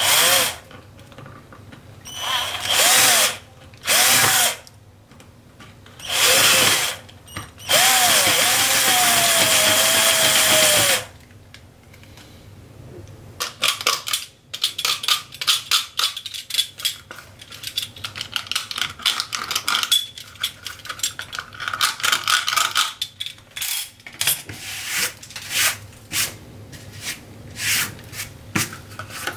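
Cordless drill driving screws into a Kydex holster in five short whining bursts, the last about three seconds long. After that, from about halfway on, comes a long string of quick small clicks and scrapes from hand-tool work on the holster.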